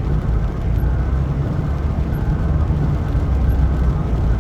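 Steady road noise inside a moving car: a low rumble of engine and tyres.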